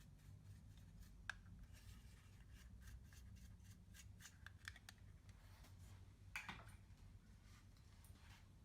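Faint, scattered small clicks and scrapes of makeup and tools being handled, with a slightly louder scrape about six seconds in.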